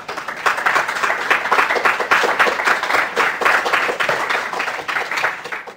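Audience applauding: dense, steady clapping from many hands that cuts off suddenly at the end.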